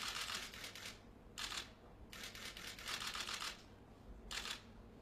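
Camera shutters firing in rapid bursts, several cameras at once, in four runs of clicking: two long and two short.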